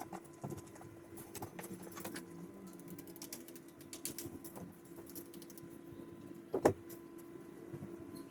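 Light, irregular clicking and tapping, with one sharp louder knock a little past the middle, over a steady low hum.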